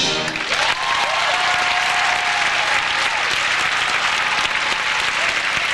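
Large theatre audience applauding, with a few cheering voices, as soon as a sung number ends.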